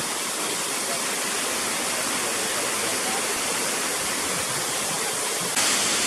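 Waterfall: a steady rush of falling water splashing onto rock, which suddenly grows louder and brighter near the end.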